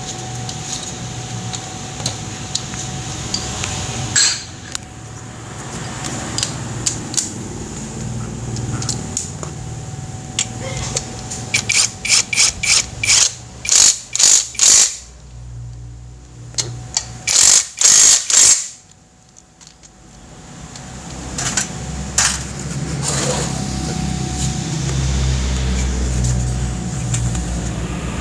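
A power tool run in a series of short bursts, several in quick succession, then a second cluster a few seconds later, as fasteners are driven during an exhaust install. A steady background hum runs underneath.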